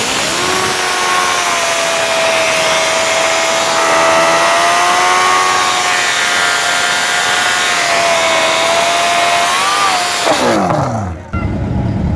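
Drag car engine held at high, nearly steady revs down the track, a loud high-pitched whine. About ten seconds in, the pitch falls away as the car comes off the throttle, then the sound cuts abruptly to a lower, duller noise.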